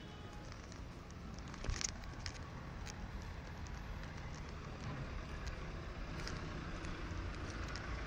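Street traffic noise, a low steady hum of passing cars, with scattered clicks and taps; the traffic grows slightly louder toward the end.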